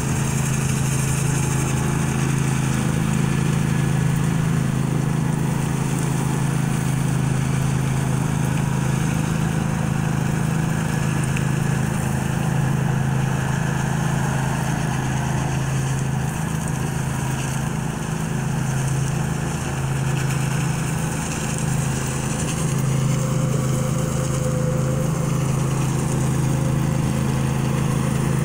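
Ride-on power trowel's engine running steadily as its rotors finish a concrete slab.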